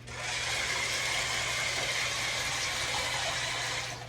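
Toy car-boat's small electric motors running, its spinning tires churning the water: a steady splashing hiss with a faint whine, stopping near the end.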